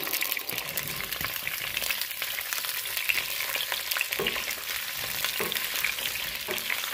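Freshly added tomatillo quarters and red jalapeños sizzling and crackling in hot oil in a pot, stirred with a silicone spatula, with a few short scrapes of the spatula against the pot in the second half.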